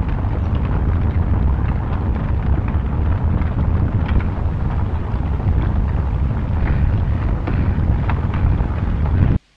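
Loud, steady low rumbling roar with scattered crackles, cutting off suddenly near the end.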